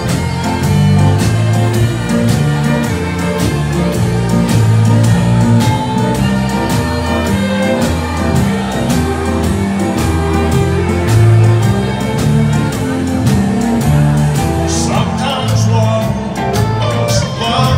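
Live band music: two fiddles playing over a bass line and drums with a steady beat.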